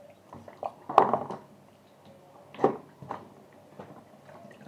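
Kitchen handling noises from a plastic bag and container at a sink while raw chicken is moved: a sharp knock about a second in, the loudest, another knock a little past halfway, and smaller taps and rustles between.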